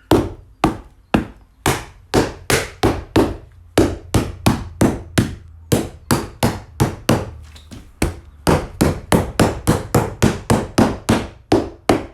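Rubber mallet knocking interlocking PVC floor tiles together to lock the joints: a steady run of blows, about two a second, quickening to three or four a second in the last third.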